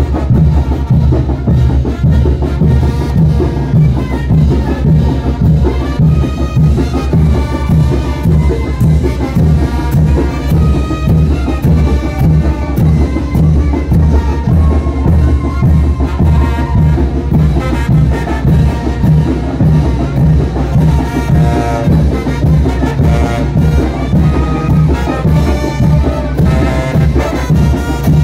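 Brass-band music with trumpets over a steady, even drum beat, the kind of dance music that Chinelos jump to.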